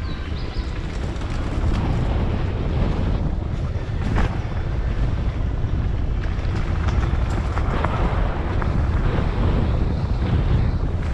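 Wind buffeting the microphone of a camera on a moving mountain bike, over the rumble of tyres on a dirt trail, with scattered knocks and rattles from bumps.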